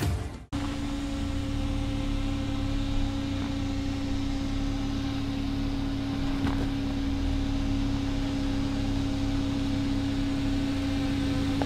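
Ford Bronco Sport SUV crawling slowly over a rocky dirt trail: a low, even engine rumble under a steady hum that does not change in pitch, with a couple of faint clicks from stones under the tyres.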